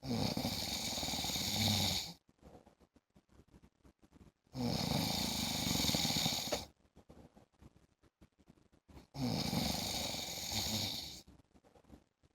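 A man snoring in a regular rhythm: three snores of about two seconds each, one every four to five seconds, with quiet gaps between.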